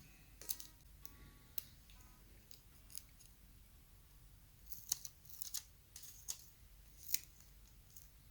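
Scissors cutting out homemade stickers: a series of sharp, irregular snips, coming thickest about five to seven seconds in.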